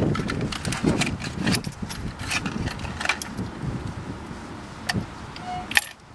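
Irregular metallic clicks and clinks of a spark plug socket and extension being handled and turned while new spark plugs are threaded into the engine, with rough handling noise underneath.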